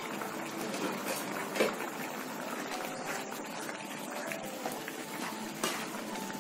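Vada curry gravy bubbling at a boil in a pan while a spatula stirs through it. Two light knocks come about a second and a half in and near the end.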